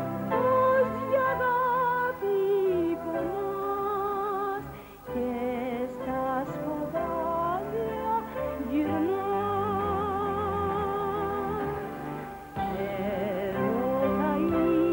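A woman singing a song with strong vibrato over an instrumental accompaniment, with short breaks in the voice about five seconds in and again near the end.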